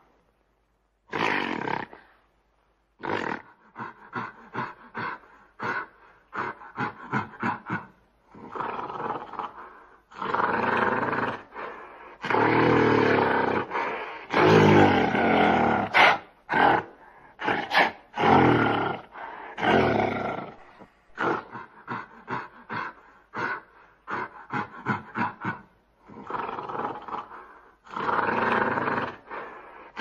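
Gorilla roars and grunts: runs of short, quick grunting calls alternating with long, loud roars, the loudest in the middle, separated by brief pauses.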